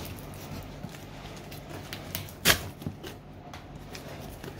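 Scissors cutting packing tape on a cardboard box, with faint scrapes and ticks and one sharp click about halfway through, over a low steady hum.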